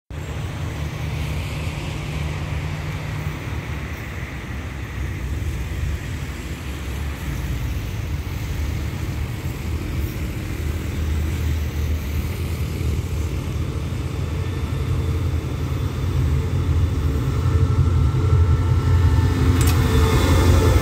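Diesel-electric locomotive of the SRT's QSY class approaching, its engine a low rumble that grows louder over the last few seconds as it draws alongside, with a brief clatter near the end.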